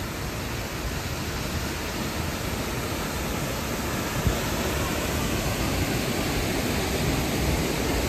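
Steady rush of a large monsoon-fed waterfall, a dense even roar of falling water across all pitches that swells slightly, with one short knock about four seconds in.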